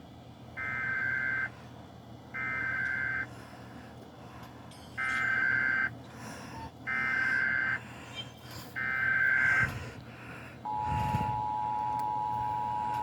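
Emergency Alert System broadcast: five separate bursts of about a second each of the digital header's data tones, then, near the end, the steady two-tone attention signal begins and holds.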